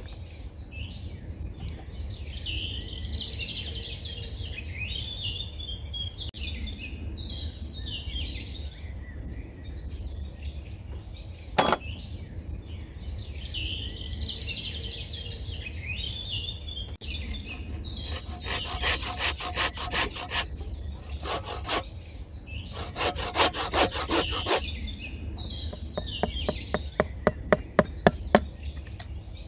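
Hand saw cutting wood in quick, rapid strokes, in bursts through the second half, ending in a run of sharper, louder strokes near the end. Birds chirp in the background, and there is a single sharp knock about twelve seconds in.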